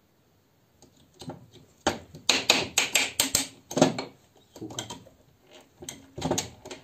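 Metal clicks and clunks from a small pit-bike engine's gearbox as it is shifted through its gears by hand and its shaft turned, while the freshly assembled gear selection is checked. The clicks start about a second in and come thick and fast for a couple of seconds, then more scattered.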